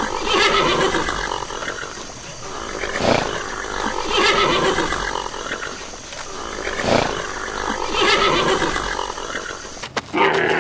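Zebra calling, a barking bray repeated several times in a row, a call every second or two.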